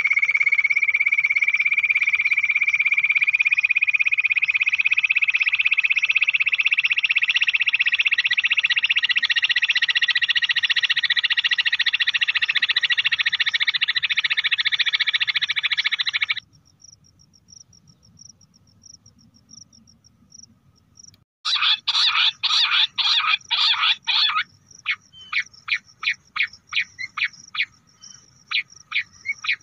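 Bush quail calls: one long, unbroken trill that slowly rises in pitch and cuts off suddenly about 16 seconds in. After a few seconds' gap comes a fast run of sharp repeated notes, then a slower series of separate notes. These are calls of the kind played to lure bush quail.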